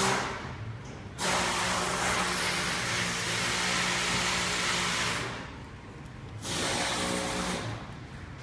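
Steady rushing noise of an electric machine with a low hum. It starts about a second in, runs for about four seconds, stops, and comes back briefly near the end.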